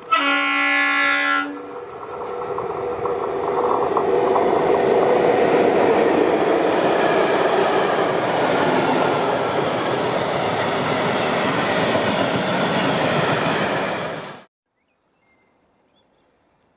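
A class 181 electric locomotive sounds its horn once, for about a second and a half, then it and its train of tank wagons pass close by with a steady rumble and clatter of wheels on rail. About three seconds before the end the sound cuts off suddenly.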